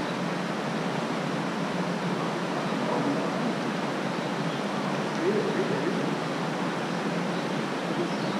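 Steady rushing hiss of creek water flowing, even and unbroken throughout.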